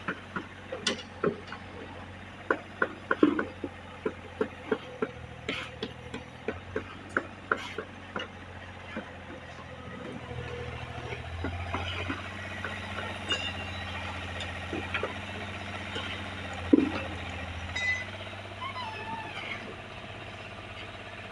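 Building-site hand-tool work: a quick run of sharp knocks and scrapes, about two a second for the first nine seconds, from tools working and handling concrete, over a steady low engine hum. Later the knocks thin out, with one loud knock about 17 seconds in.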